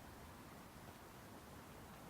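Near silence: a faint steady hiss with a low rumble, and no siren.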